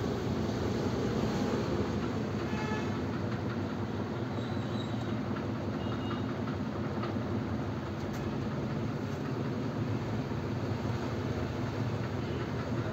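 Steady, even machine hum and rumble with no break. A few faint, brief tones come through about two and a half seconds in and again around six seconds.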